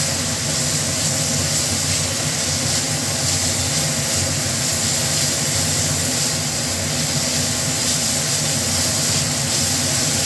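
Masala paste sizzling steadily in hot oil in a kadai as it is stirred and fried, over a steady low machine-like hum.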